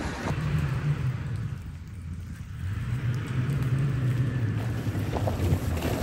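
Toyota Tacoma pickup's engine running at a steady low drone as the truck drives along a snowy trail, getting louder near the end as it comes closer.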